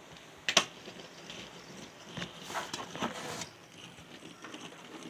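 A sharp click about half a second in, then a run of small clicks and rattles between about two and three and a half seconds in.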